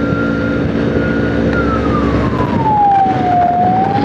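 A 70cc motorcycle running steadily at cruising speed on a highway, its engine hum mixed with wind and road noise. A single siren-like tone slowly falls in pitch and rises again, loudest about three seconds in.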